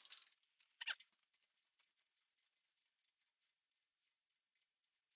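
Faint, quick clicking of a ratchet wrench turning the rocker-arm adjusting nuts of a small-block Chevy 400 during valve lash adjustment, with one sharper metal knock about a second in.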